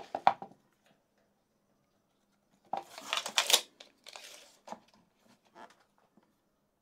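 Short scratchy strokes of a pencil marking a wooden board, with a few light clicks and knocks of tools being handled.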